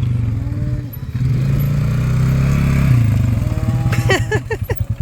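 Four-wheeler (ATV) engine running close by, held at raised revs and then easing off about three seconds in to a slow, pulsing low-rev putter.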